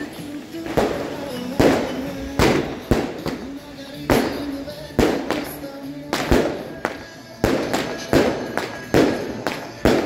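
A multi-shot fireworks battery firing off the street, one sharp bang roughly every half-second to second, each shot trailing off as it echoes. A song fades out under the first couple of seconds.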